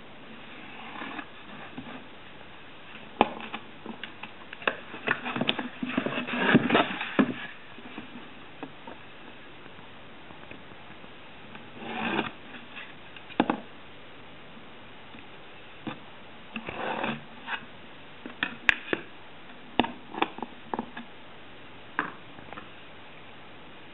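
Scattered light clicks, taps and short rubbing or rustling noises of small objects being handled, in irregular clusters with quiet gaps between.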